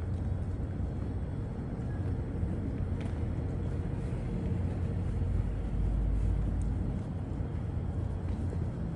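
Outdoor city ambience: a steady low rumble of traffic, swelling for a second or two past the middle.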